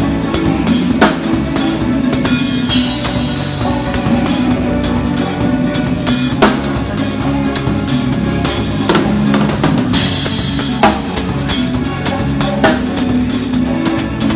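Drum kit played live in a fast brega-calypso groove: quick snare and bass-drum hits, with the band's steady bass and keyboard tones underneath. Louder accented hits land every few seconds.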